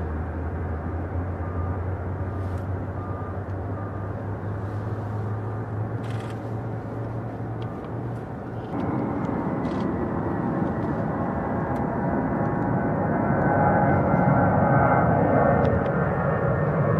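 A-10 Thunderbolt II jets' twin TF34 turbofan engines: a steady low drone for the first half, then, after a sudden change a little past halfway, a louder jet whine that swells.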